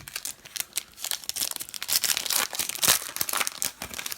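Crinkling and tearing of a foil trading-card pack wrapper being opened and handled, in dense loud crackles that build about a second in.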